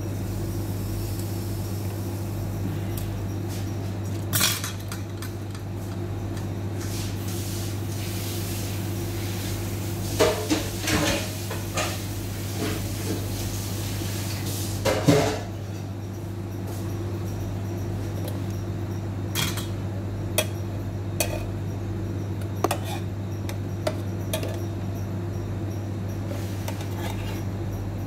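Kitchen clatter: scattered knocks and clinks of cookware, loudest in a few clusters around ten and fifteen seconds in, over a steady low hum.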